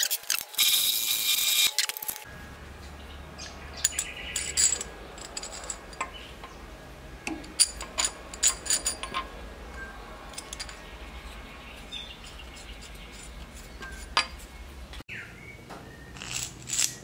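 A drill press drilling through a mild-steel clamp jaw for about the first two seconds, a loud high-pitched cutting noise that stops abruptly. After that comes a low, steady motor hum, with scattered clinks and taps of steel parts and threaded rod being handled. A few more metal clicks come near the end.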